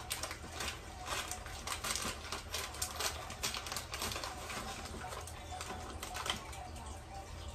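A pair of messed-up scissors cutting open a plastic instant-noodle packet, with the wrapper crinkling: a run of irregular short snips and rustles.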